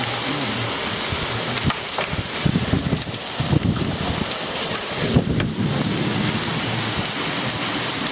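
Hailstorm: heavy rain and hail coming down on tiled floors and ledges, a steady hiss with scattered sharp ticks of hailstones striking. Low rumbles swell up about two and a half seconds in and again about five seconds in.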